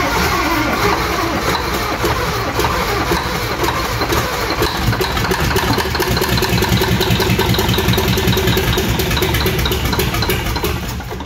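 Old diesel engine of a 1954 Peterbilt running on ether on its first start in 55 years, firing in a fast, rough rhythm. Working the throttle does nothing, so it is running on the ether alone. The running fades near the end.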